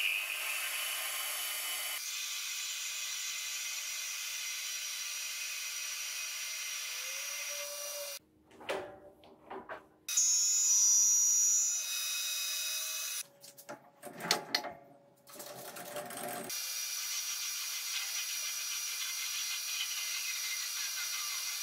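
Metal Master X40100 metal lathe running steadily with a bar spinning in its chuck and a carbide-insert tool at the cut. About eight seconds in, the steady running gives way to scattered clicks and knocks, a short louder stretch with a high whine, then more knocks, before the lathe runs steadily again for the last few seconds.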